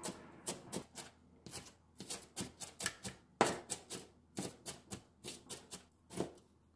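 Chef's knife chopping onion on a plastic cutting board: quick, uneven taps of the blade on the board, about three or four a second, one of them louder about halfway through. Near the end a single slower cut goes through a strip of pickled radish.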